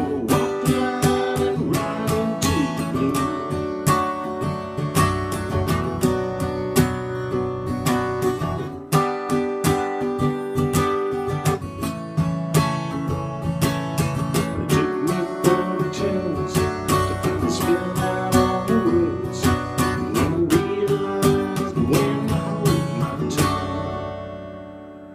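Acoustic guitar strummed in a steady rhythm. Near the end a last chord is left to ring out and fade away.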